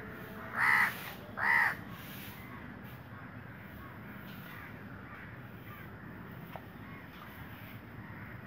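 Two short, loud animal calls in quick succession, each under half a second long, about a second in.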